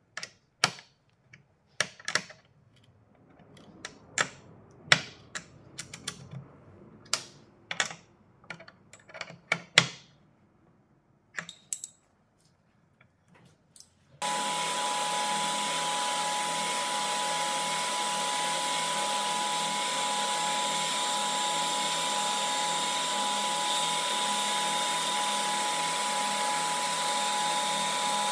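First, metal clicks and clinks as a wrench tightens the nuts on a threaded steel spindle. About halfway through, a table saw starts a loud steady run with a wooden rod spinning against its blade, being turned round.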